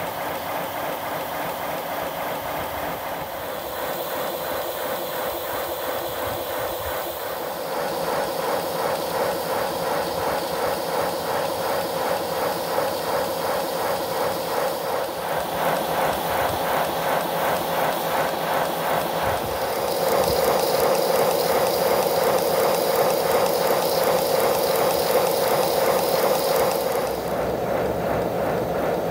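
A 5-inch-gauge live-steam model of an Andrew Barclay 0-4-0WT well-tank locomotive running on rollers, with fast, even exhaust beats, steam hiss and the clatter of the motion. It grows louder in steps about eight seconds in and again near twenty seconds, then eases a little near the end.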